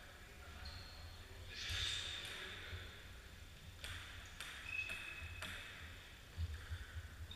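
A table tennis ball clicking sharply a few times between points, with a brief high squeak, in a gym hall.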